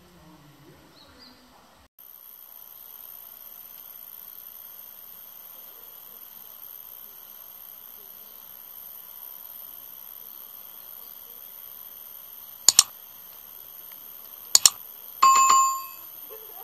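Subscribe-button sound effect: two sharp mouse clicks followed by a short bell ding, over a steady high-pitched whine that comes in about two seconds in.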